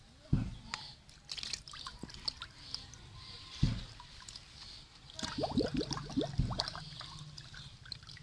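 Water sloshing, trickling and dripping, with scattered splashes and clicks and a few dull thumps.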